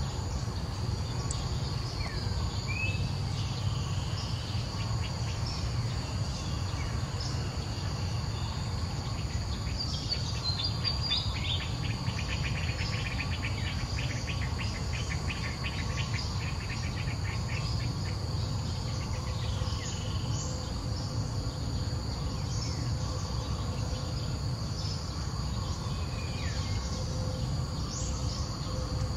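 Insects droning steadily on one high, even tone, joined in the middle by several seconds of a rapid pulsing trill, with a few short bird chirps scattered through and a low steady rumble underneath.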